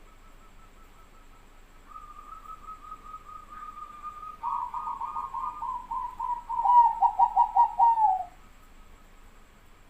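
Zebra dove (perkutut) cooing: a rapid rattling series of short coo notes that steps lower in pitch and grows louder. It ends in a loud run of about nine pulsed coos that drops off near the end.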